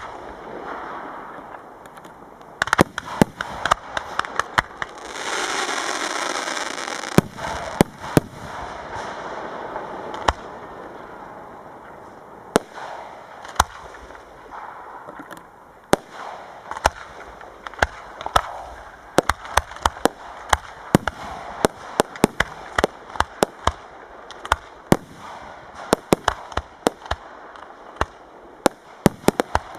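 Fireworks display: a long run of sharp bangs from bursting aerial shells, coming faster in the second half. A loud rushing hiss swells about five seconds in and lasts roughly two seconds.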